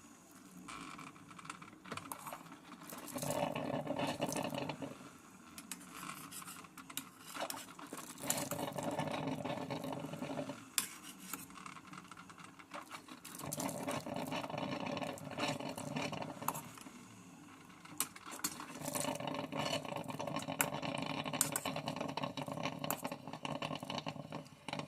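A utensil stirring ramen noodles in a saucepan of hot water, in spells of a few seconds of scraping and small clicks against the pan.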